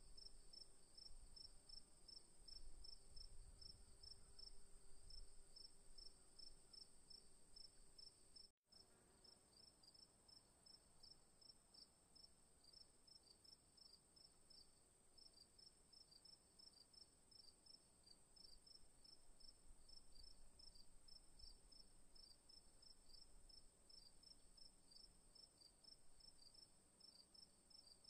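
Faint insect chirping, quick runs of high pulses over a steady high hum, cutting out for an instant about a third of the way through.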